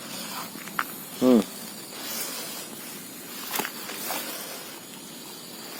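Steady high-pitched insect chorus, with one short voiced sound from a person about a second in and a few faint clicks later.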